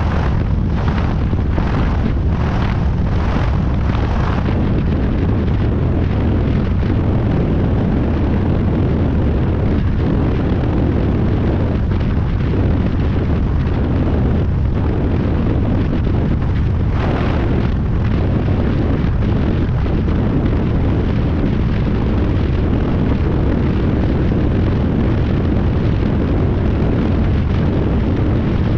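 Loud, steady wind buffeting on a camera mounted under the wing of a light high-wing aircraft in flight, mixed with the plane's engine noise. A quick run of pulses in the first few seconds, and one more about midway.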